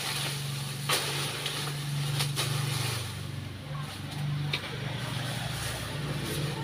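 Dry leaves and fronds rustling and crackling as they are raked and gathered into a pile, with a few sharp scrapes, over the steady low hum of an engine running.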